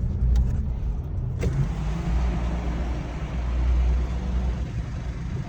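Car road and engine noise heard from inside the cabin while driving: a steady low rumble.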